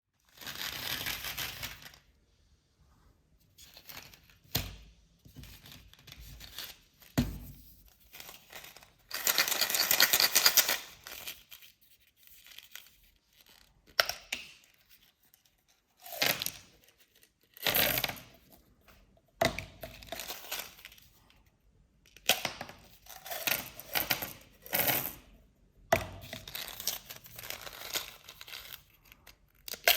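Irregular bursts of tearing, crinkling and clattering from candies and their plastic packaging being handled and broken, with short quiet gaps between.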